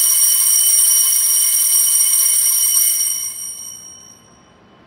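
Altar bell ringing at the elevation of the consecrated host during Mass: a loud, high metallic ringing with several steady overtones that fades away about three to four seconds in.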